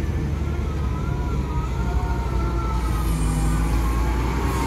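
Heavy diesel construction machinery running with a deep, steady engine rumble, a wavering high whine drifting slowly up and down over it.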